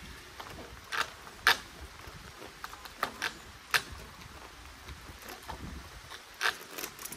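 Scattered sharp clicks and knocks, about seven in all, from a plastic rainwater downpipe being handled and worked at its bottom joint while the pipe is blocked.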